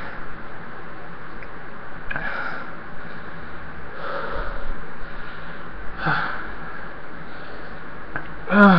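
A man sniffing and breathing hard in a few short breaths about two seconds apart, over a steady background hiss. It is his reaction to the burn of Carolina Reaper puree in his mouth and throat.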